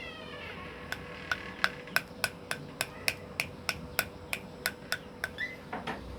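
A run of about fifteen sharp, evenly spaced taps, roughly three a second, each with a brief ringing ping, starting about a second in and stopping just past five seconds.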